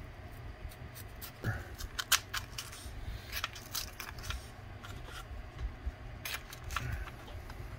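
Razor knife cutting slits into foam board: a run of short, irregular scratchy cuts and clicks.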